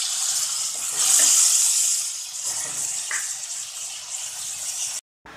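Vinegar sizzling as it is poured into the hot oil of a pan of frying chicken and onions. The hiss swells about a second in, eases off, and cuts off suddenly near the end.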